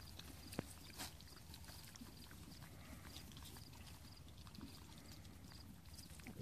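Piglets rooting and chewing in the grass close by, faint, with scattered small clicks and a couple of sharper ones about half a second and a second in.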